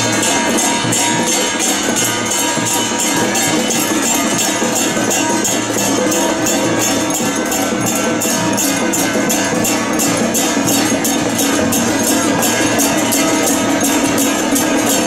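Temple-procession band music: cymbals clashing on a quick, steady beat over held melody tones.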